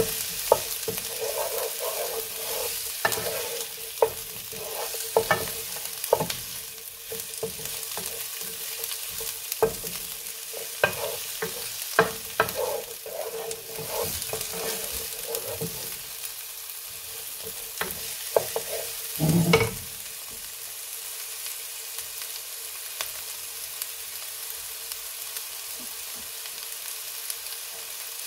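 Chopped scotch bonnet chillies, red pepper, onion and garlic sizzling gently in oil in a non-stick frying pan while a wooden spoon stirs and scrapes through them. There is one louder knock about two-thirds of the way through. After it the stirring stops and only the steady sizzle continues.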